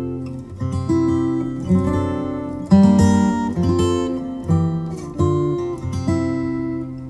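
Instrumental music on a plucked string instrument, with single notes and chords picked and left to ring and fade.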